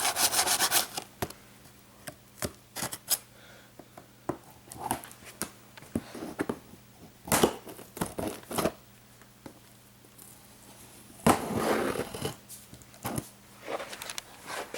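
A present box being opened by hand: scattered knocks, clicks and rustles of handling, with a quick run of clicks at the start and a longer tearing, scraping stretch about eleven seconds in.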